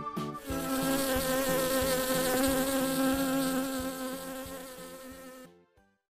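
Honey bees buzzing: a steady droning hum that starts about half a second in, fades and stops shortly before the end.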